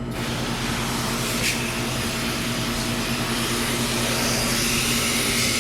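Garden hose spray hissing steadily as water jets onto the fins of an air conditioner's condenser coil, rinsing it clean, over a steady low hum.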